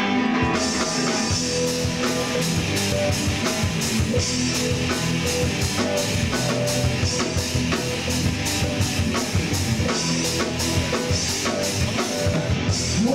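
Live rock band playing a song's instrumental intro: electric guitar, joined about half a second in by the full drum kit, with cymbals struck on a steady beat.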